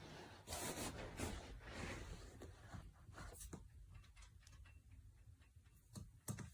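Faint rustling and rubbing in a small room, then a few light clicks, the sharpest near the end.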